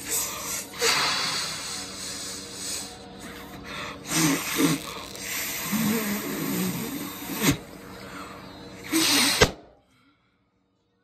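Someone blowing hard into a latex balloon, in repeated puffs of rushing breath, until the balloon bursts with a sharp pop a little before the end.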